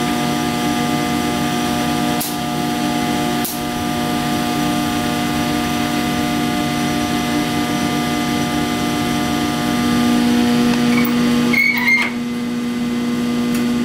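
Direct-flame drum coffee roaster running with a steady motor and fan hum. Sharp metal clicks sound about two and three and a half seconds in as its controls are worked, and a short clatter of metal clanks comes near the end.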